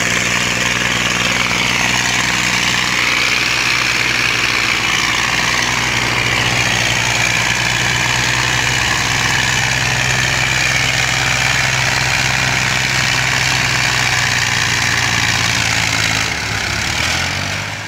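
Massey Ferguson tractor diesel engines working hard under load as two tractors pull a heavily loaded trailer together, a steady heavy drone with clattering noise above it. The sound fades away over the last couple of seconds.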